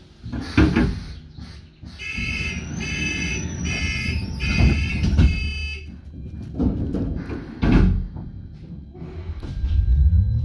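Bus door warning tone beeping in several pulses over a few seconds, between heavy thuds, with the doors clattering shut right after the beeps. Near the end the bus's motor note rises steadily as it pulls away.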